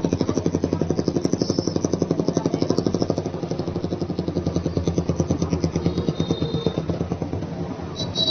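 Motorcycle engine running at low road speed, heard from on the bike: a steady rhythmic thudding of about ten beats a second over a low drone. A short high-pitched tone sounds near the end.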